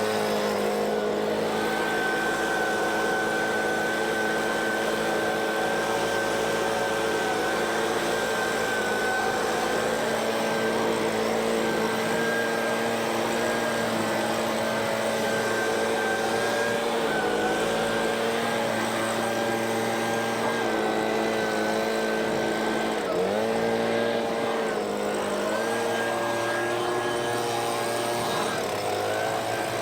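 An engine running steadily, its pitch dipping briefly several times as though it is being loaded.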